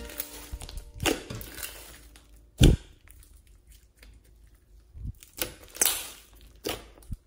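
Glitter slime being squeezed, folded and stretched by hand, giving scattered wet pops and crackles as trapped air pockets burst; the loudest pop comes about two and a half seconds in.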